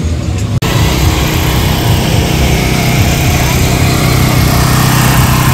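Small engine running steadily: a constant low drone under a loud hiss, starting abruptly about half a second in.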